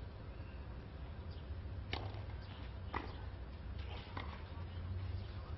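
Tennis rackets striking the ball during a rally: three sharp pops about a second apart, over the steady low hum of an old broadcast recording.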